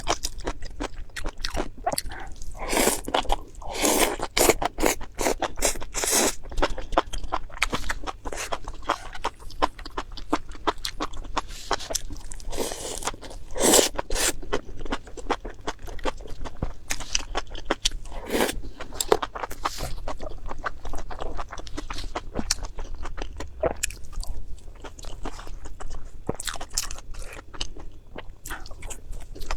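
Close-miked eating: a person biting and chewing crunchy food, with dense irregular crunches and a few louder bites.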